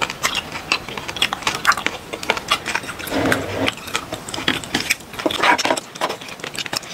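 Chopsticks and a wooden spoon clicking and scraping against a frying pan as sauced ramen noodles are stirred and lifted: a quick, irregular run of sharp clicks with a couple of brief softer swishes.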